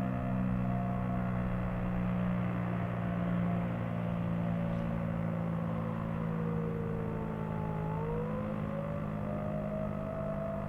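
Federal Signal STL-10 outdoor warning siren sounding the attack signal: its pitch slides slowly down, then climbs back up about eight seconds in, over a steady low hum.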